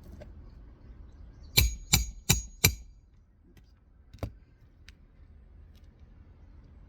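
Hammer driving a roofing nail through a replacement asphalt shingle: four quick strikes about a third of a second apart, then one lighter strike a moment later.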